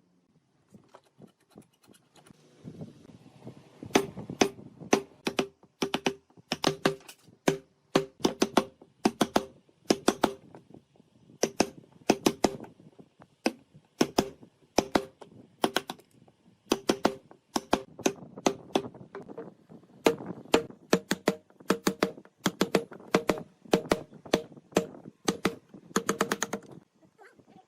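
A hammer tapping again and again, two to three sharp strikes a second with short pauses, each strike with a brief ring.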